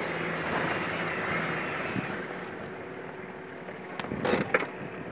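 Nissan Patrol GR Y61 driving slowly over a rough dirt track, heard from inside the cabin: a steady engine drone that eases off after about two seconds, then a few sharp knocks and rattles about four seconds in.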